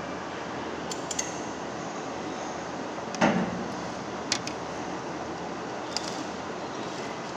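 A few sharp clicks and one heavier knock about three seconds in, over a steady hiss: parts and tools being handled during a disassembly.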